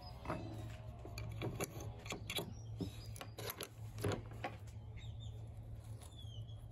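Scattered light clicks and knocks of tool handling: a metal file set down on a wooden table, then a steel C-clamp and an aluminium tag blank gripped and shifted. The sharpest knock comes about four seconds in, over a steady low hum.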